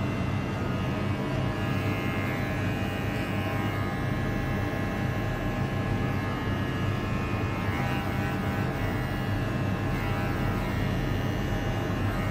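Cordless electric dog clipper running with a steady, even hum as it trims a standard poodle puppy's coat.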